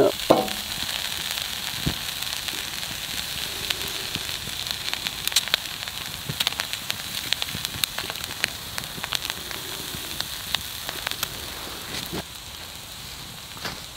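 Wood campfire crackling with scattered sharp pops, over a steady sizzle of food frying in a pan on the fire; the sizzle drops away near the end.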